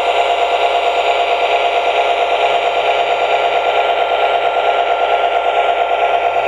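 Lionel LionChief Plus GP7 O-gauge model diesel locomotive running on track: a steady mechanical whir and rattle with a fast, even pulsing and a steady hum.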